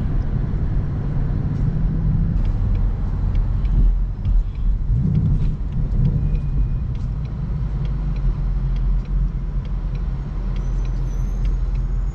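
Car engine and road noise heard from inside the cabin while driving: a steady low rumble with scattered faint clicks.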